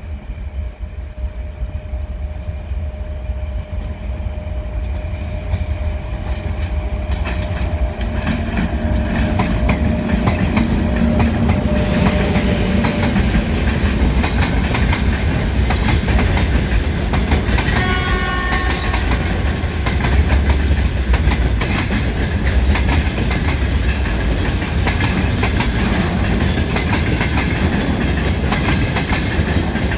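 Freight train behind a 2ES5K electric locomotive pulling out and rolling past: a heavy rumble with wheels clacking over rail joints, growing louder over the first ten seconds.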